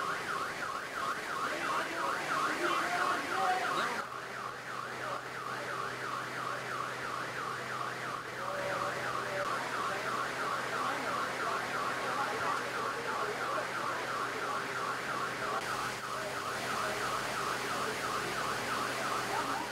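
Car alarm sounding a fast, continuous rising-and-falling warble, with a low steady hum beneath it from about four seconds in.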